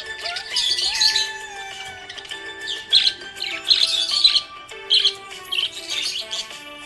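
Budgerigar chirping in quick clusters of high chirps, over background music with held melodic notes.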